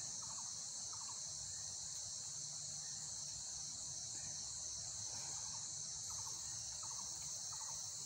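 Steady high-pitched drone of a forest insect chorus, with short, rapidly pulsed chirps at a lower pitch breaking in now and then.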